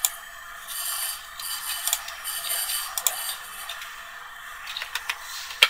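Computer mouse being moved about, with a scratchy rustle and a few light ticks, then one sharp click near the end.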